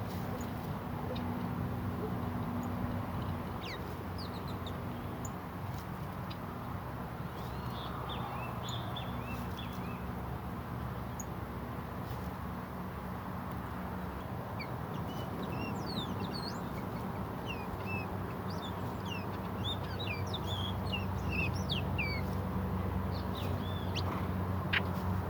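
Wild songbirds chirping and calling in short, scattered high notes, most busily in the second half, over a steady low hum.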